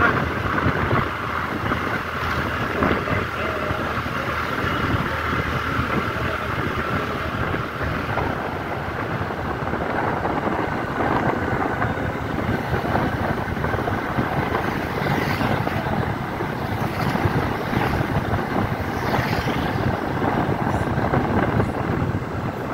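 Wind rushing over the microphone of a moving motor scooter, with the scooter's engine and tyre noise running steadily underneath.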